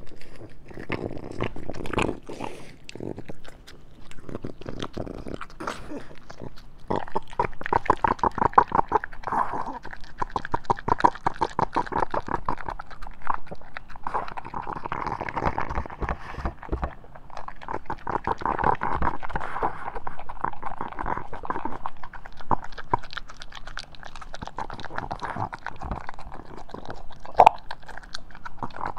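A French bulldog eating a raw-meat meal. For the first few seconds it chews and crunches, then from about seven seconds in it licks and gulps fast and steadily at its food bowl.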